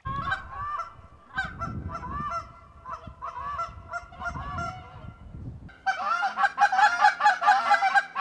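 Geese honking: scattered single honks at first, then from about six seconds in a sudden, much louder chorus of many geese honking rapidly over one another.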